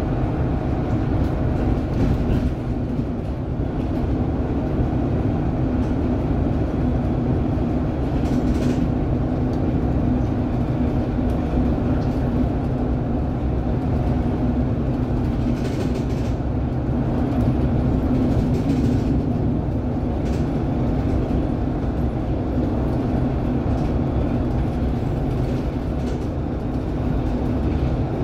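City bus running at speed on the road, heard from inside at the front: a steady drone of engine and tyre rumble with a low hum.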